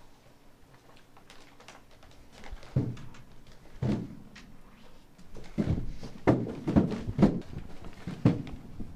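A series of dull thumps: the legs of a wooden chair knocking on a carpeted floor as the person sitting in it shifts and hops it about. There is a single thump about three seconds in and another about four seconds in, then a quicker run of about five near the end.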